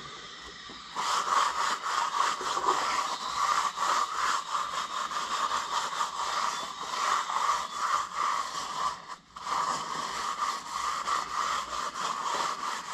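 An acetone-soaked towel scrubbing back and forth over a milling machine's T-slotted table, degreasing it. The scrubbing starts about a second in, pauses briefly about two-thirds of the way through, then carries on.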